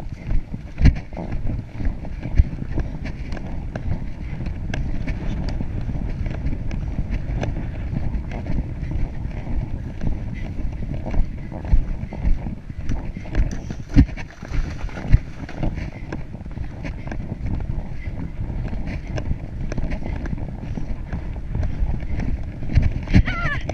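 A horse's hoofbeats at speed on grass, under a steady rumble of wind buffeting the microphone.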